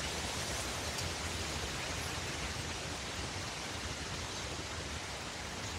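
Wind rushing steadily through forest trees, an even, unbroken hiss with no distinct gusts.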